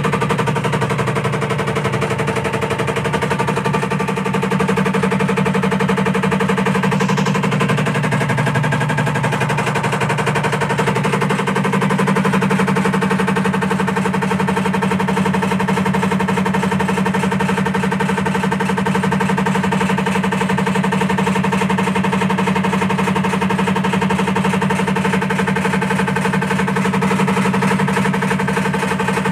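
IFB top-load washing machine running with an empty drum, making a loud, steady, fast-repeating mechanical noise. It is this noisy even with no clothes inside: the noise fault the owner is showing.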